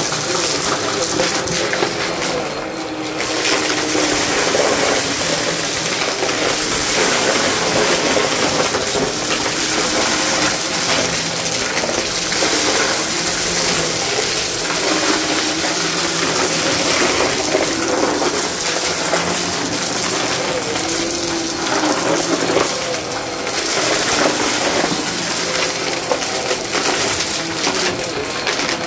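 Vacmaster upright bagless vacuum running over carpet, its motor droning steadily while it sucks up scattered small crunchy debris that rattles and clatters through the nozzle into the dust cup.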